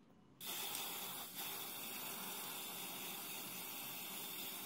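Silver spray paint hissing out in a steady spray onto a small metal juicer part. It starts suddenly, breaks briefly about a second in, then carries on evenly.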